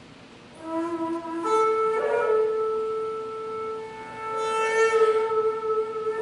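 Daegeum, the large Korean bamboo transverse flute, playing slow held notes: it enters softly just under a second in, steps up to a higher note, and holds it, swelling louder and brighter near the middle.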